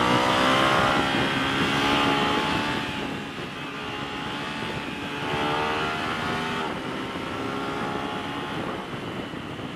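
Aprilia RS 660's parallel-twin engine through a full Akrapovic exhaust, accelerating hard: the engine note climbs in pitch, drops sharply about three seconds in and again near seven seconds as quick-shifter upshifts go through, then climbs again, with wind rushing past.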